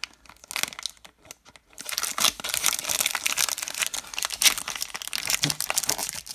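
Baseball card pack wrapper being handled and torn open: a few light crinkles, then dense continuous crinkling and tearing from about two seconds in.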